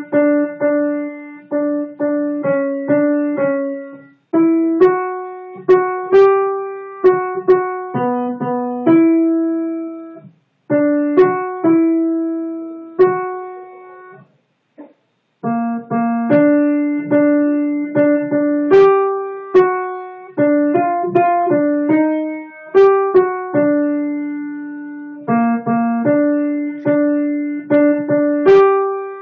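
Piano playing a single melody line one note at a time, each note struck and then fading, with a brief pause about halfway through. It sounds like one voice part, the alto line, picked out on its own for learning.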